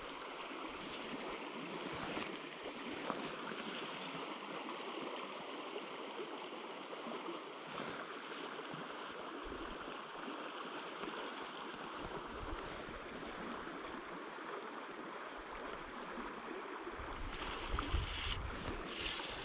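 Steady rush of flowing river water, an even hiss with no breaks. A low rumble comes in near the end.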